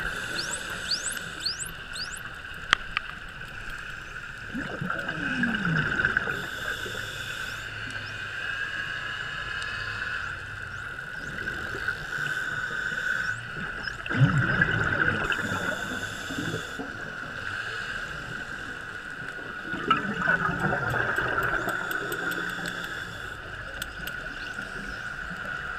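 Underwater sound of bottlenose dolphins: short falling whistles near the start and faint clicks near the end, over a steady high hum. Rumbling bursts of a scuba diver's exhaled regulator bubbles come every several seconds.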